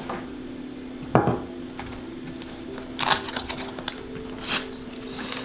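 A small cardboard box being handled and opened: a sharp knock about a second in, then scraping and rustling of the cardboard flap around three seconds in and again near the end, over a faint steady hum.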